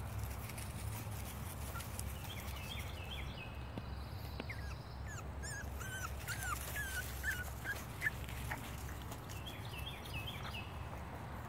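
Boston Terrier puppies giving a quick series of short, high-pitched yips and whimpers, bunched about midway through, over a steady low rumble.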